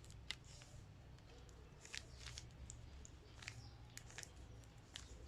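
Rubik's cube being turned by hand: faint, irregular plastic clicks of the layers snapping round, over a low steady hum.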